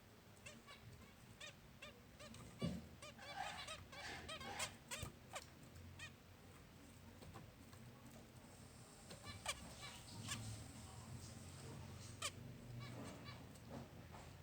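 Zebra finches giving many short, nasal honking calls over one another, with a few sharp clicks among them.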